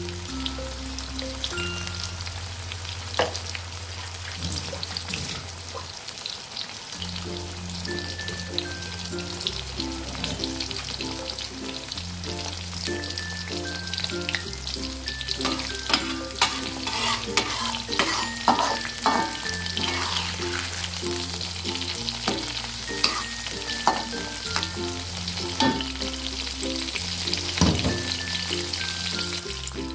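Battered shrimp deep-frying in hot oil: a steady sizzle and crackle with many sharp pops, growing busier and louder about halfway through. Background music with a slow bass line plays underneath.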